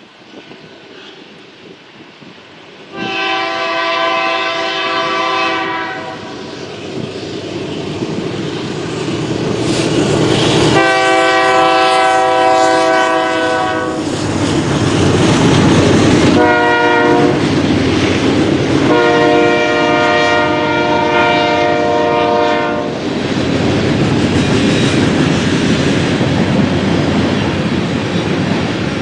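Freight locomotive horn sounding the grade-crossing signal, two long blasts, a short one and a long one, as the train approaches and passes. The train's rumble and the clicking of wheels over rail joints grow louder and keep going after the horn stops.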